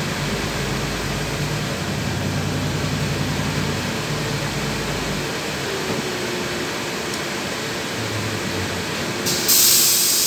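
Interior running noise of a LiAZ 6213.21 diesel articulated city bus: a low engine drone with a humming note that eases off after about five seconds, over steady cabin and road noise. Near the end comes a sudden loud hiss of compressed air from the bus's pneumatic system, lasting about a second and a half.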